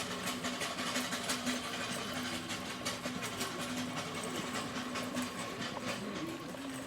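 Continuous rattling: a dense run of small clicks and clatters, with a steady low hum underneath.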